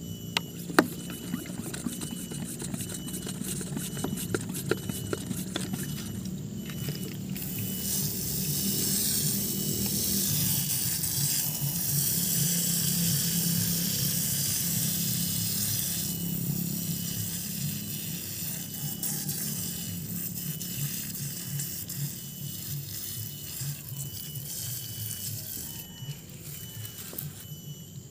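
Hand-pump pressure sprayer spraying water onto muddy soil and exposed roots: a steady hiss of spray starting about eight seconds in and stopping a couple of seconds before the end. A low steady hum runs underneath, with a few light clicks in the first seconds.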